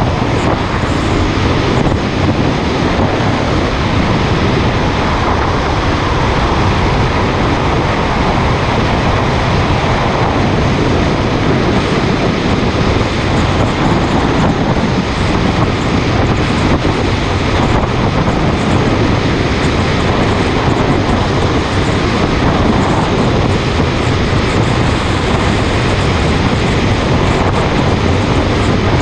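Steady wind rush and road noise from a motorcycle riding at speed, with wind buffeting the on-board microphone.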